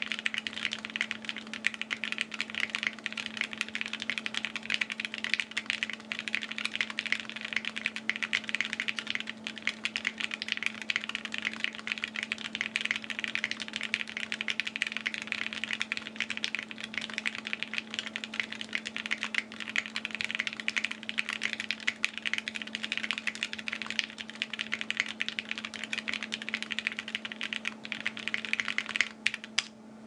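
Fast, continuous typing on a custom mechanical keyboard: Gateron KS3 switches in a carbon fiber plate, a fully foamed case and GMK doubleshot ABS keycaps. The clacking stops just before the end, over a steady low hum.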